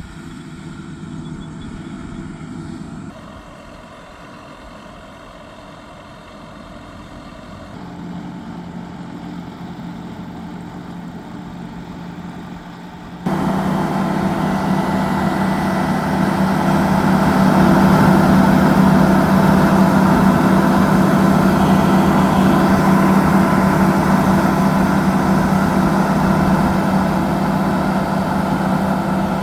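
Yanmar YH6115 six-row combine harvester's diesel engine running steadily while harvesting rice. About halfway through it suddenly becomes much louder and stays loud and steady.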